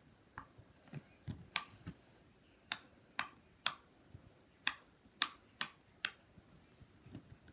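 Silicone pop-it fidget toy having its bubbles pressed, giving about a dozen sharp little pops at an uneven pace of roughly two a second.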